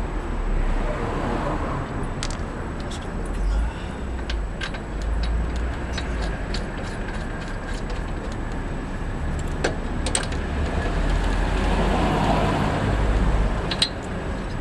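Scattered metal clicks and clinks of a wrench at work on a tight spark plug on a Tecumseh small engine, over a steady low rumble that swells near the end.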